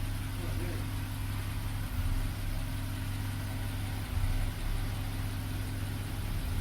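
BMW 328i's 3.0-litre inline-six idling steadily, a car being diagnosed for a misfire.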